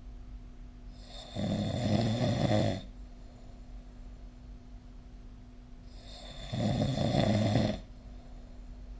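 A person snoring: two snores about five seconds apart, each lasting a little under two seconds. Between them is a faint steady hum.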